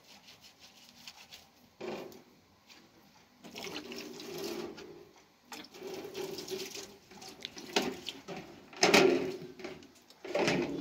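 Hands rubbing and wiping across a large round metal tray in several bursts of scraping. The loudest scrape comes about nine seconds in.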